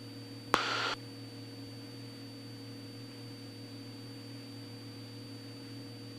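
Steady, muffled drone of a Cessna 206 Stationair's engine heard in the cockpit. About half a second in there is a sharp click and a short burst of hiss lasting under half a second.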